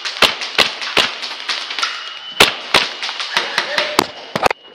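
Airsoft gunfire: sharp, irregular single cracks of shots and BB hits, a few a second, each with a short echoing tail.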